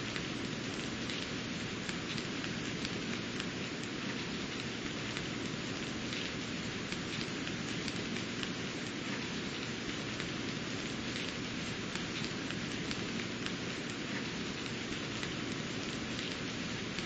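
Steady rain falling, an even hiss with many single drops ticking through it.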